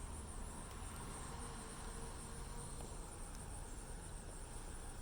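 Quiet steady background noise: a low hum under a constant high-pitched hiss.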